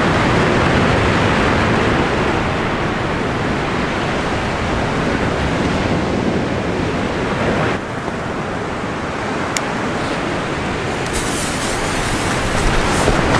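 Steady rushing wind noise on the microphone. Near the end a lit firework fuse starts crackling and hissing as it sputters sparks.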